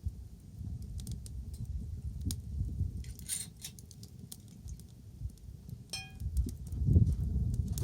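Wood fire crackling, with scattered sharp pops over a low rumble. About six seconds in there is a short ringing ping, and the rumble grows louder near the end.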